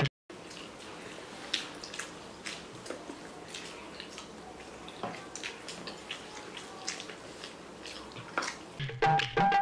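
Eating sounds over a steady room hiss: soft chewing and slurping of noodles with scattered small clicks and taps. Tabla background music comes back in near the end.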